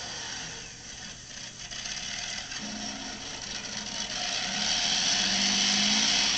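Monster truck engine running as the truck drives over and crushes a mobile home, with the trailer's wreckage crunching and rattling. The sound grows louder over the last couple of seconds.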